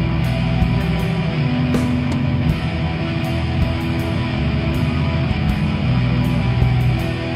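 Rock music with electric guitar and a steady drum beat, laid over the footage.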